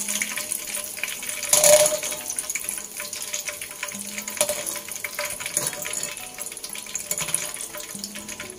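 Dried chilies frying in hot oil: a steady sizzle with fine crackles, surging loudly for a moment about two seconds in, then slowly dying down.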